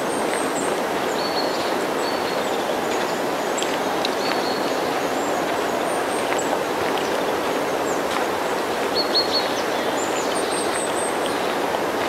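A train passing at a distance: steady rushing noise of its wheels on the rails, with short high-pitched squeaks now and then.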